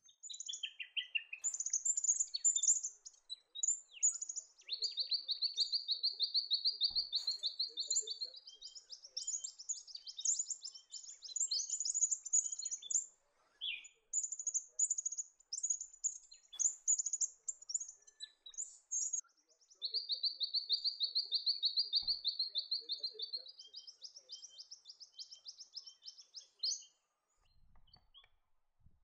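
Wild songbirds singing: high, rapid chattering notes, with a steady trill held for a few seconds that breaks into a quick run of higher notes, twice.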